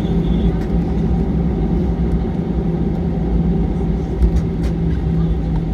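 Airbus A320 cabin noise: the engines and airframe give a steady, loud rumble with a constant low hum, and a few faint ticks of cabin rattle.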